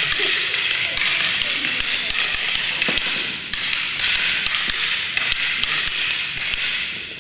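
Wooden fighting sticks clacking against each other in a fast two-person stick drill, several strikes a second in a steady run that stops abruptly near the end.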